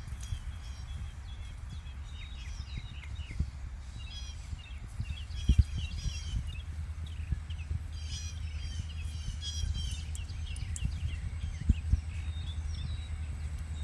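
Small birds chirping in quick, repeated short notes, over a steady low rumble with a few dull thumps.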